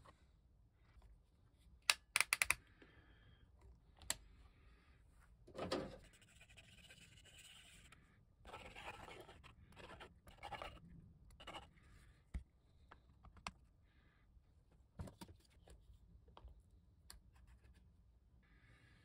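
Faint handling noises of 3D-printed plastic parts being fitted together, glued and clamped: a quick run of sharp clicks about two seconds in, a thunk near six seconds, then scratching and rubbing with scattered clicks.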